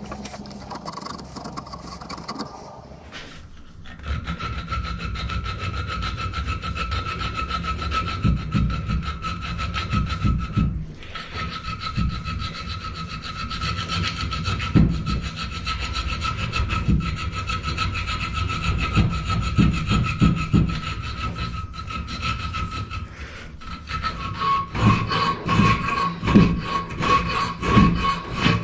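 Hand file rasping back and forth on a small steel angle-iron bracket held in a bench vice, filing a round 8 mm hole out square. The filing starts about four seconds in as fast, even strokes over a steady high ring, and the strokes grow heavier near the end.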